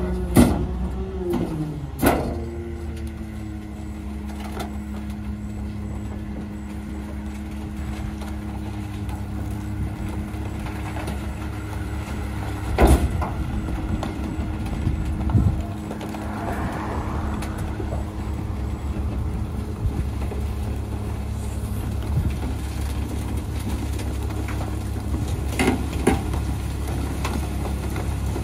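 Rear-loader garbage truck running steadily while its hydraulic packer cycles, pulling a mattress into the hopper. Sharp clanks sound near the start, about two seconds in and about halfway through, with a few lighter knocks later.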